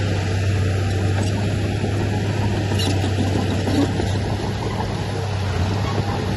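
Diesel engine of heavy earth-moving machinery, a dump truck or bulldozer, running steadily with a constant low drone.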